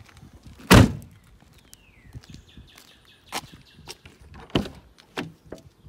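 One heavy thud about a second in, then a few sharp clicks as a car door handle is pulled and the door worked.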